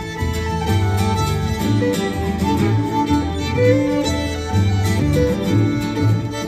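Live Irish traditional instrumental music: a fiddle plays the melody over acoustic guitar accompaniment and an upright double bass keeping a steady pulse.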